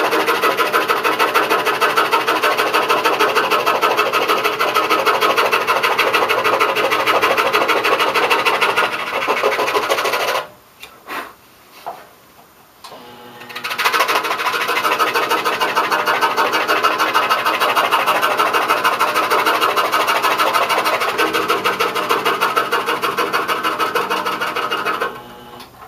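DeWalt scroll saw running at a slow speed, its thin puzzle blade cutting through a taped packet of marquetry veneer with a fast, even pulse of strokes. The cutting falls quiet for about three seconds near the middle, then carries on.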